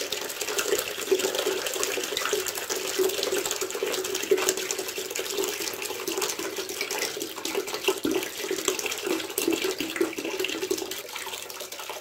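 Steady stream of water pouring from a panel radiator's opened bottom connection into a plastic basin that is already full of water. The black, sludgy water is what is being flushed out of the clogged radiator.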